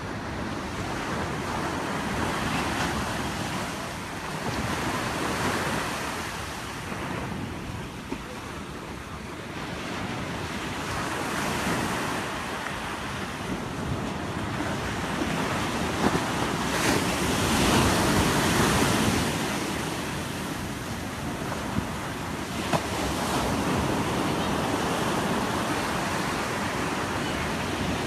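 Ocean surf breaking on a sandy beach, the waves swelling and washing in every few seconds, loudest a little past halfway.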